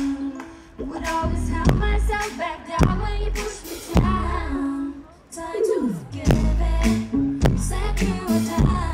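Pop song with female vocals over a heavy beat and deep bass, with a falling swoop about halfway through.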